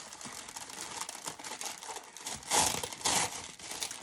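Product packaging crinkling and rustling as it is unwrapped, with two louder crinkles about two and a half and three seconds in.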